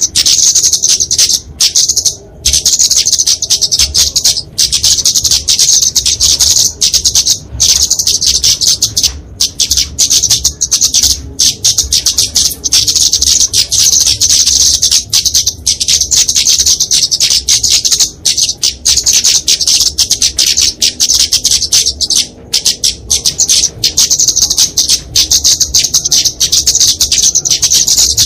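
Flowerpecker giving rapid, high-pitched twittering calls in a dense, almost unbroken stream, the agitated fighting calls used to provoke and lure other small birds.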